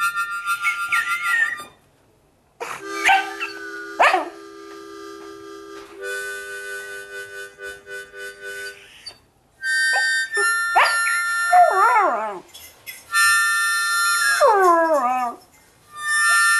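A dog howling along to a harmonica. The harmonica plays held chords broken by short pauses, and from about two-thirds of the way in the dog joins with several howls that slide down in pitch.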